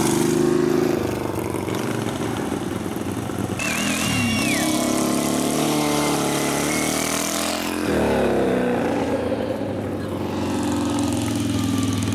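Racing lawn mower engines running and revving on the track, their pitch rising and falling, with marked changes about four and eight seconds in.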